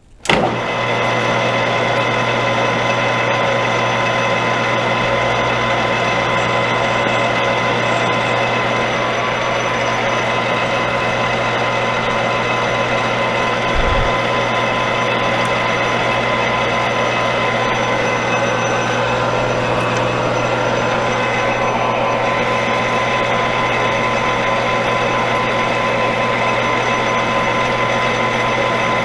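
Metal lathe starting up just after the start and then running steadily with a constant gear and motor whine, while turning a brass tool down by another 5 to 10 thousandths.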